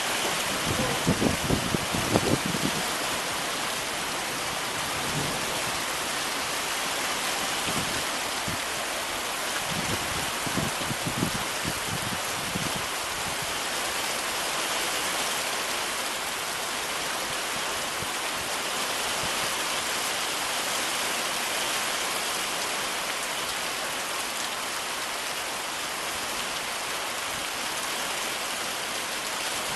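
Heavy rain falling steadily, a dense even hiss. A few short low thuds come through in the first couple of seconds and again about ten seconds in.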